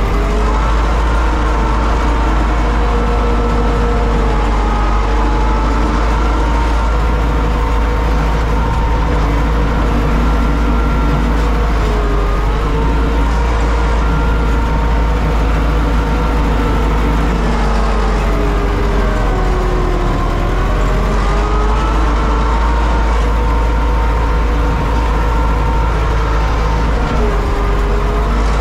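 Universal U650 tractor's four-cylinder diesel engine running steadily under load while pulling a four-furrow plough, heard from inside the cab. It is a deep rumble with a droning whine, and its pitch dips briefly twice as it lugs.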